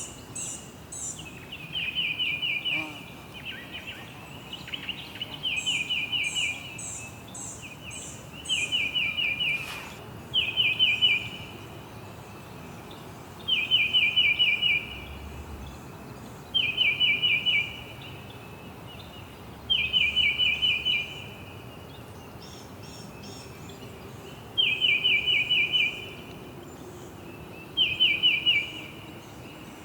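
Songbird singing a short, fast trill of rapid chirps over and over, a phrase every few seconds, with a higher, quicker series of notes from a second bird at times.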